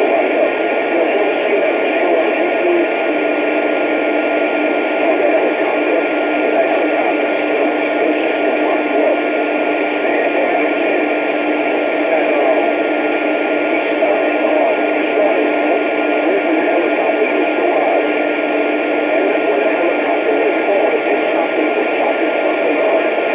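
Two-way radio receiver hissing with a dense jumble of faint overlapping signals, and two steady whistle tones, one low and one higher, running through most of it.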